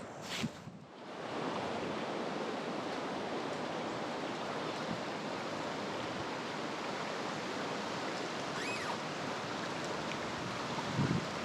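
Creek water running over shallow rapids: a steady, even rush that comes in about a second in.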